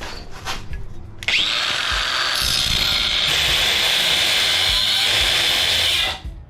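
Angle grinder with a cut-off wheel starting up about a second in and cutting metal pipe with a steady high whine, stopping just before the end. A few light knocks of handling come before it starts.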